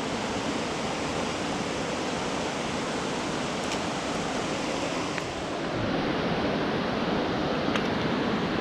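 A creek's water rushing steadily, growing slightly louder and duller about six seconds in.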